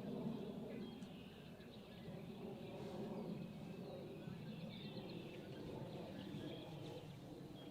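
Scattered small-bird chirps and calls over a steady low rumble of wind.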